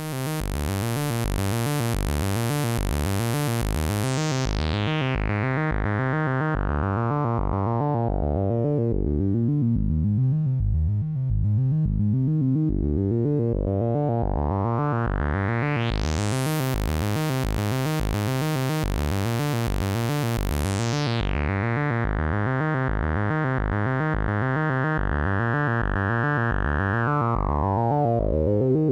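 A sawtooth wave from a modular synth oscillator plays a fast, repeating low sequence through an Erica Synths Polivoks-style filter, with the cutoff swept by hand. The tone closes down to a dull, muffled pulse about a third of the way through, opens back out to full brightness past the middle, then closes partly again toward the end.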